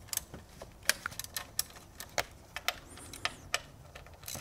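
Ratchet with an E-Torx E10 socket clicking in uneven single clicks, about ten of them, as the fasteners of the Ecotec 1.4L's exhaust camshaft position actuator solenoid are worked loose.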